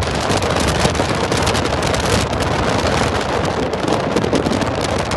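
Steady wind noise on a phone microphone filming from a moving vehicle, with the vehicle's road and engine noise underneath.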